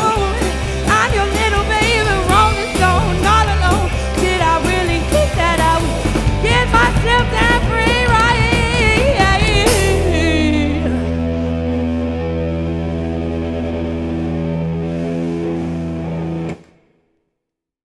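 Live rock band with electric guitar and drum kit playing out the end of a song. A big final hit comes about ten seconds in, then the last chord is held and rings steadily for about six seconds before it stops abruptly, leaving silence.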